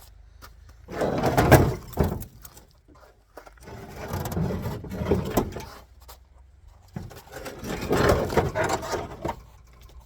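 Three bouts of metal scraping and rattling, each lasting about one to two seconds, as sheet-metal body parts of an old car are worked loose during teardown.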